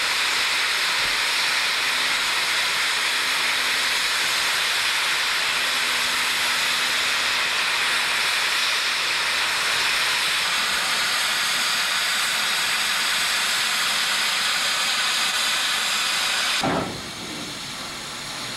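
Norfolk & Western 611, a J-class 4-8-4 steam locomotive, blowing off steam from the top of its boiler: a loud, steady hiss that cuts off suddenly near the end.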